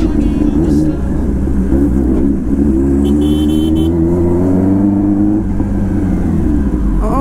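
Kawasaki ZX-10R's inline-four engine running under way over a steady low rumble, its pitch rising gradually from about two to five seconds in. There is a short high-pitched beep about three seconds in.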